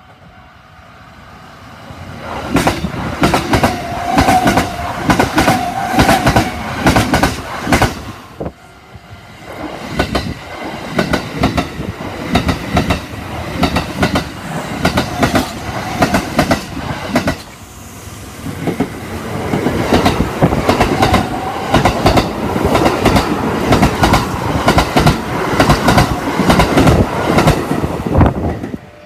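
Kintetsu Osaka Line trains clattering over the rail joints at a level crossing: rapid, loud runs of wheel clacks as each wheelset strikes the joints. It comes in three long stretches with brief lulls about a third and about two-thirds of the way through.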